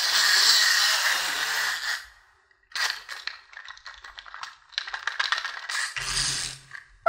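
Small plastic toy's spring motor: a steady buzzing whir for about two seconds, then after a short pause rapid ratchet-like clicking as it is wound, and a second run of clicks with a brief low hum near the end as it is let go.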